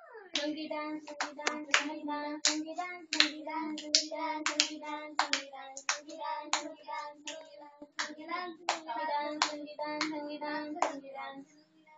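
Hand claps, about two or three a second and uneven, over a voice singing long, steady notes; both stop about a second before the end.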